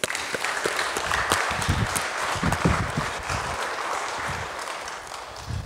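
A congregation applauding: many hands clapping together, starting all at once and dying away near the end.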